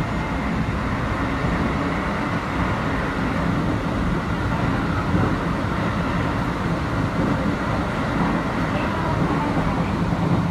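Keio 8000 series electric train running, a steady rumbling running noise that keeps an even level throughout.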